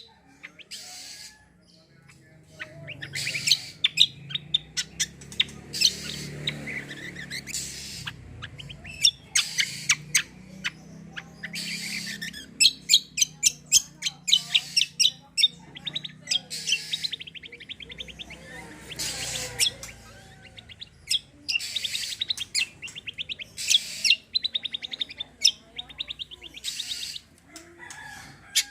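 Cage songbird of the kind kept in Indonesia as kecial kombo (cucak kombo), singing in fast, high, rattling bursts of a second or two, over and over. These are the rapid "tembakan" and "besetan" phrases bird keepers prize in a vocal, fully-in-song bird.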